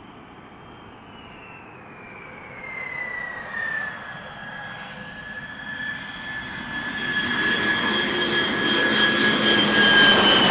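B-2 Spirit stealth bomber landing, its four turbofan engines whining. The whine falls in pitch, then holds steady and grows louder, loudest near the end as the bomber rolls close by on the runway after touchdown.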